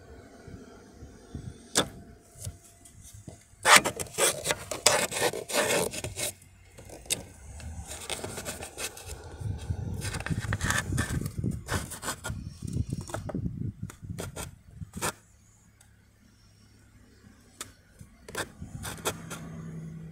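Handling noise from a phone being moved about behind a car's dashboard: irregular rubbing and scraping with sharp clicks, loudest about four to six seconds in, then a short quiet stretch before a few more clicks near the end.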